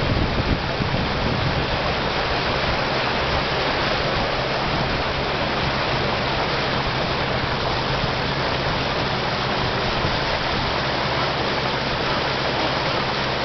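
Steady rush of water along the hull of a small fishing boat under way, with a low engine hum beneath it.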